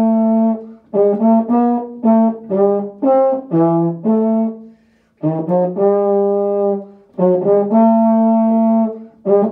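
Euphonium playing a slow unaccompanied solo melody: a held note, then a string of short notes, a brief breath break about five seconds in, then another phrase settling on a long held note.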